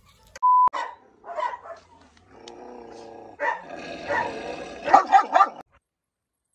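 A short beep near the start, then a German Shepherd-type dog growling low and steadily, breaking into snarls and barks for about two seconds before stopping suddenly.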